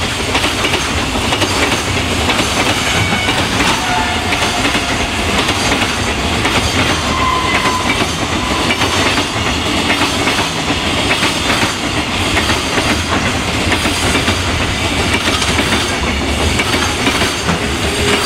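Container flatcars of a long electric-hauled freight train rolling past close by, a steady loud rumble with wheels clattering over rail joints.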